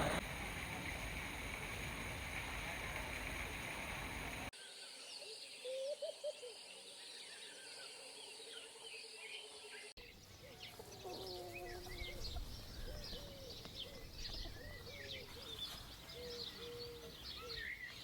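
A steady hiss of background noise, then many birds chirping and calling together, with high quick chirps over a few lower, bending calls. The noise stops abruptly after a few seconds, and the bird calls carry on through two cuts.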